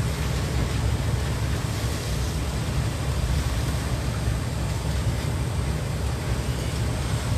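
Steady low rumble with a continuous rushing noise of wind and water aboard a boat in rough seas.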